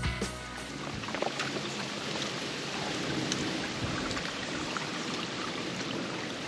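Shallow stream water running steadily over a stony, leaf-covered path, with a few faint footsteps.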